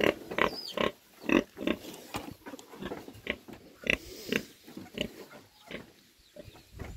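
Pigs grunting and squealing in a rapid, irregular run of short calls, impatient to be fed.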